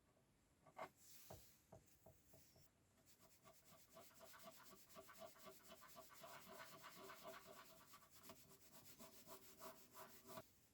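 Faint, rapid rubbing strokes of hand sanding, which pick up about three seconds in.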